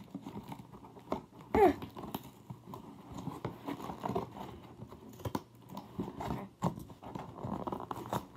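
Packing tape on a package being cut and picked at by hand: irregular scratchy scraping, small clicks and crinkling of the packaging. One brief, louder pitched sound comes about a second and a half in.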